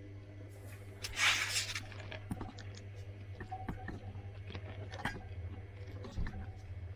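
Zanussi IZ 16 S washing machine in its wash phase: the drum tumbling the wet load with a steady motor hum, scattered small clicks and knocks, and a louder swish of water about a second in.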